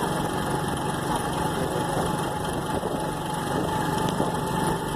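Small motorcycle engine running steadily while riding along, with a constant hum.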